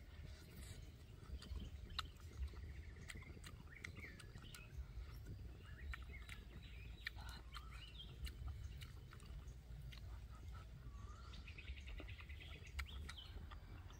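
Birds chirping and calling, with a fast repeated trill near the end, over close chewing sounds and small clicks as a person eats.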